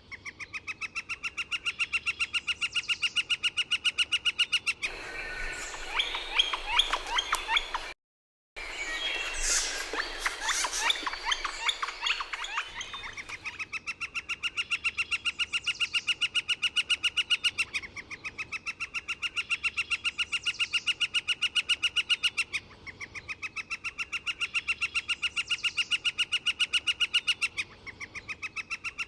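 Northern flicker giving its long call: a fast, even run of identical 'kek' notes lasting about four seconds and growing louder. The run is repeated several times. Between about five and thirteen seconds in there is a more jumbled stretch of irregular calling, broken by a brief cut.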